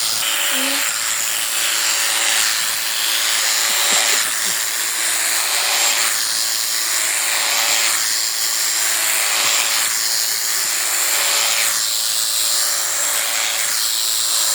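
Electric sheep-shearing clippers running steadily, with a high buzz whose sound changes in a repeating pattern about every two seconds as they work through the fleece.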